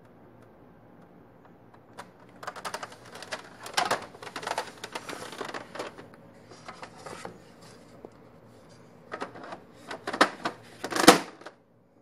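Brother ML-100 electronic daisy-wheel typewriter clattering in two bursts of rapid clicks, the second ending in the loudest clatter near the end.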